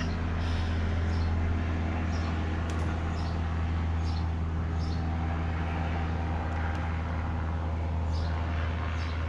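Motor vehicle noise from outside: a steady low engine hum with traffic passing, loud enough to stop the talking.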